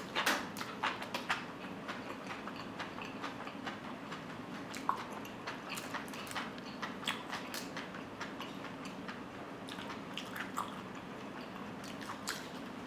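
Eating sounds: chewing and biting into barbecued food, with many scattered small clicks and crunches over a steady low hum.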